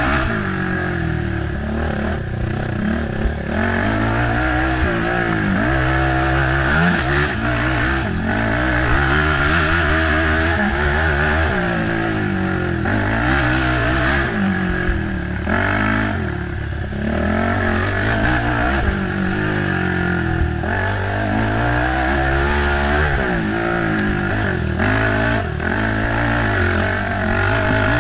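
Race ATV engine working hard over a cross-country course, revving up and dropping back again and again as the throttle opens and closes, with clatter and scraping from the machine over rough ground.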